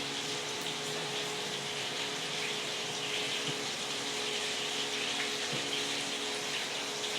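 Fish frying in a pan of hot oil: a steady sizzling hiss, with a low steady hum underneath.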